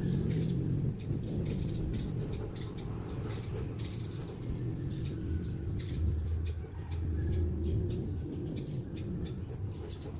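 Pen scratching on paper in short strokes, over a steady low rumble.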